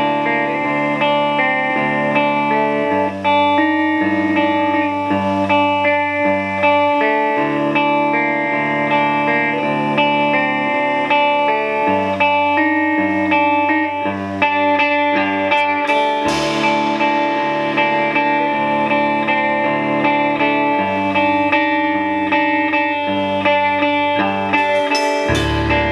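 Clean electric guitar, a Telecaster-style instrument, playing a ringing picked melody over a held high note, with low notes shifting underneath every second or two. A crash rings out about two-thirds of the way in, and a few sharp hits come near the end as the drums come in.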